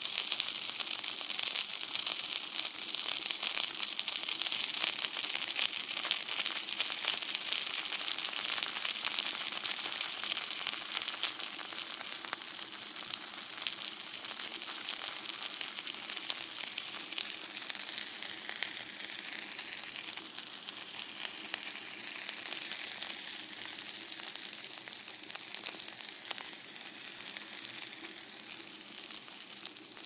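Food frying in a frying pan: a dense, steady sizzle of fine crackles and pops that slowly eases in level toward the end.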